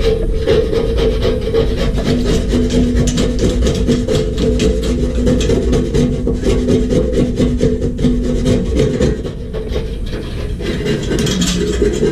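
A small motor running steadily with a hum and a continuous rasping, scraping noise over it, easing off slightly for a couple of seconds near the end.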